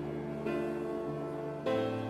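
Slow background music of held chords, a new chord coming in about half a second in and another near the end.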